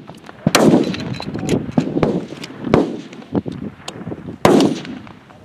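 F-Class target rifles firing on the 600-yard line: several separate shots, three of them much louder than the others, each followed by a rolling echo.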